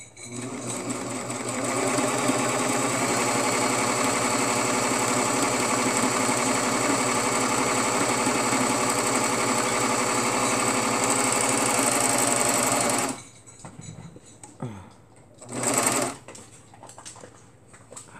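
Serger (overlock machine) stitching along a fabric edge: it speeds up over the first couple of seconds, runs steadily for about thirteen seconds and stops suddenly, then runs again in one short burst a few seconds later.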